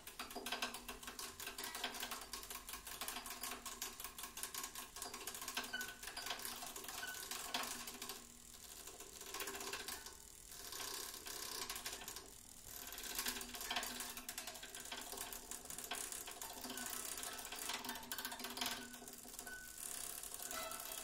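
Acoustic guitar with its strings mechanically agitated: a dense, rapid rattling clatter over several sustained ringing string tones. The rattle thins out and drops in level briefly three times, about a third of the way through and twice more soon after.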